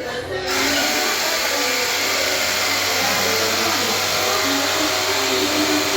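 Pressure washer running, its water jet spraying in a loud, steady hiss with the machine's motor humming underneath; the spray resumes about half a second in after a brief stop.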